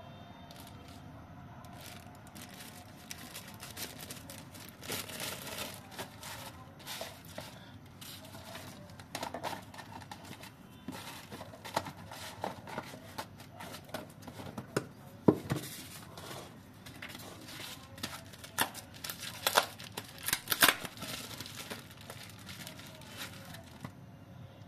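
Packaging handled by hand: paper inserts, plastic wrap and a cardboard box rustling and crinkling in irregular bursts, with a few sharper crackles past the middle and near the end.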